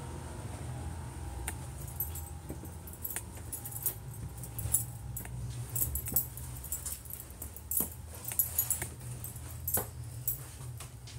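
Irregular sharp clicks and light jingling, scattered unevenly, over a steady low hum.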